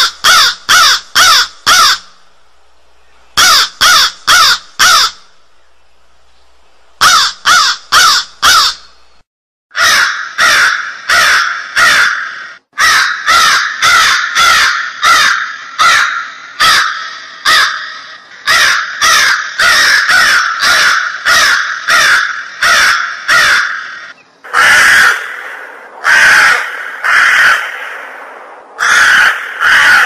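Crows cawing loudly. The caws come in quick bursts of four or five with short pauses between, then in a long run of rapid caws, and near the end as a few longer caws.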